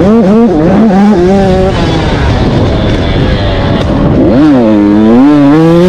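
KTM 85 two-stroke dirt bike engine heard from on the bike, revving up and down as the throttle is worked. The pitch wavers up and down in the first seconds, then dips sharply about four seconds in and climbs again.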